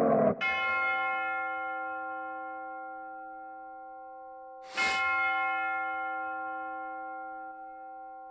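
Bell-like chime struck twice, about four and a half seconds apart, each ringing out with several steady overtones and slowly fading; the second strike comes with a short whoosh. It marks the quiz's answer reveal.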